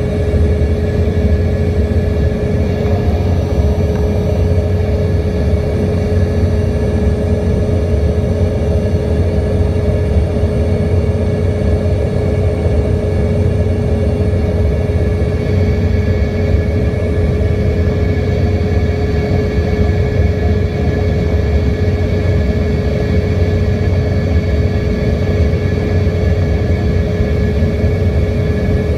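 Cabin noise inside an Embraer ERJ-145 regional jet on final approach, flaps extended: a loud, steady rumble of airflow and the rear-mounted Rolls-Royce AE 3007 turbofans, with a constant engine whine over it.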